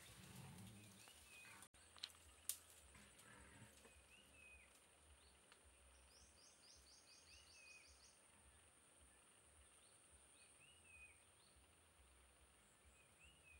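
Faint bush ambience with birds: a short chirping call repeats every few seconds, with a quick high trill about six seconds in. Two sharp clicks about two seconds in are the loudest sounds.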